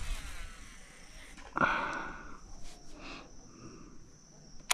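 Steady high-pitched insect drone, with a brief louder rushing sound about one and a half seconds in.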